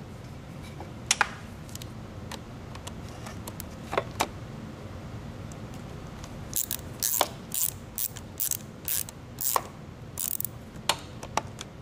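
Socket ratchet tightening a bolt into a motorcycle battery terminal: a few single clicks, then from about halfway in a run of ratcheting strokes about two a second.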